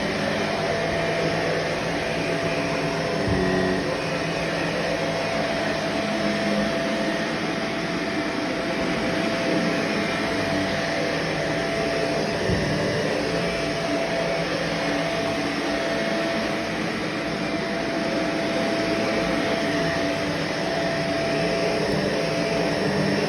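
Vacuum cleaner running steadily: a constant airy rush with a steady whine on top, and a couple of soft bumps along the way.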